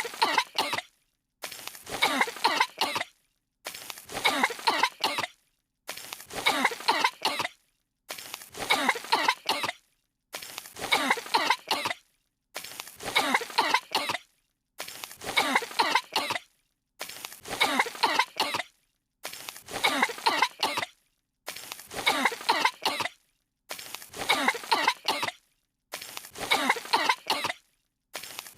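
Two cartoon characters coughing and spluttering from a cloud of dust. A run of several coughs about a second and a half long repeats as an exact loop about every two seconds, with a short dead silence between repeats.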